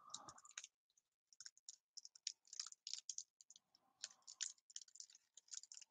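Faint, irregular crinkling and crackling of a Topps trading card pack's foil wrapper as fingers work it open. The pack is stubborn and will not tear open cleanly.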